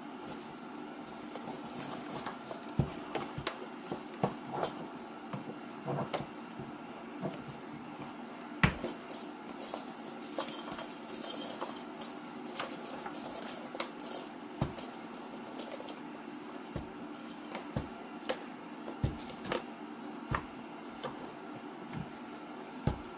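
Ice cleats with metal spikes being handled: irregular clicks and light jangling clinks with some rustling, over a steady low hum.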